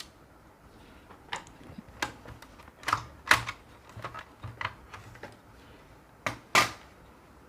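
Irregular small, sharp clicks and taps of screws and a screwdriver against the plastic laptop case, about a dozen in all, with two louder clacks around three and six and a half seconds in.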